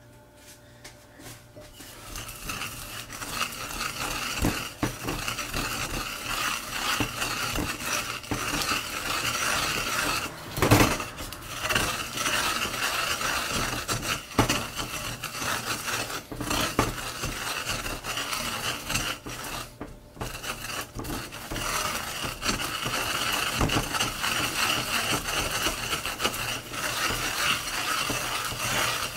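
Wooden pestle grinding sesame seeds round a ridged ceramic suribachi mortar: a continuous gritty scraping and rasping that builds up over the first couple of seconds, dotted with knocks of the pestle against the bowl. The loudest knock comes about ten seconds in, and there is a brief lull around twenty seconds.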